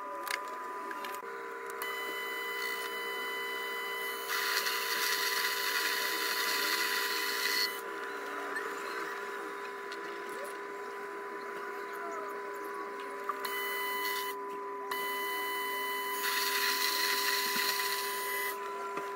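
Proxxon PD250/E mini lathe running with a steady motor whine while turning a steel rebar shaft. Twice a harsher hiss of the tool cutting comes in, about four seconds in for some three seconds, and again near the end.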